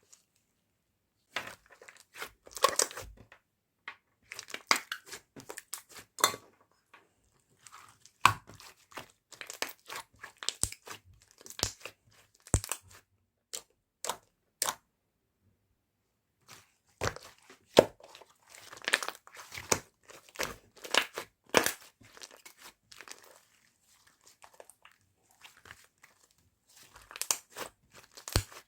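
Cookie slime being squeezed, pulled and pressed by hand, giving irregular bursts of crackling, crunching and tearing with short pauses between handlings.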